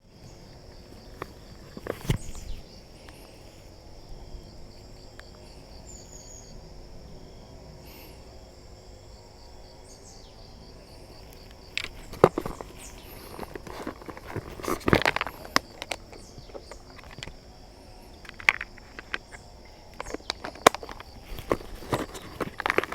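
Insects chirping outdoors in a steady, high, pulsing chorus. Over it come scattered knocks and rustles of handling and footsteps, one near the start and many more from about halfway through; these are louder than the chorus.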